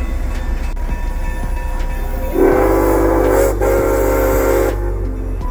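Train air horn sounding two blasts about halfway in, several notes at once as a chord, with a short break between them. A steady low rumble continues underneath.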